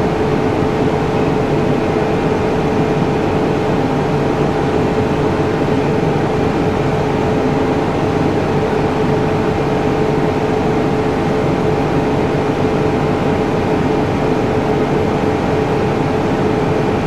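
Steady machine hum over a hiss, holding two constant tones without change.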